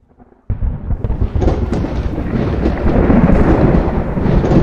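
Rumbling thunder sound effect that starts suddenly about half a second in and rolls on loudly without a break, with a deep low rumble and scattered crackles.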